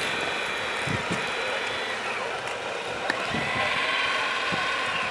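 Radio-controlled models' small electric motors whining steadily over outdoor background noise, with a few light knocks.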